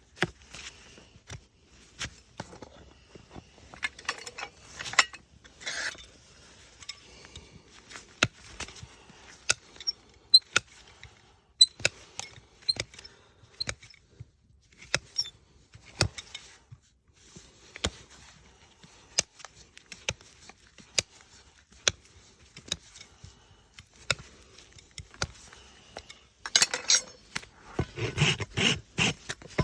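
Farrier's tools working a horse's hoof: scattered sharp clicks and snaps of cutting at the hoof. About three seconds before the end, a hoof rasp starts filing in quick strokes.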